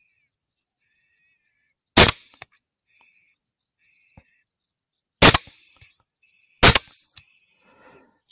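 Three rifle shots fired at a coyote: one about two seconds in, then two more about a second and a half apart, each a sharp crack with a short tail of echo.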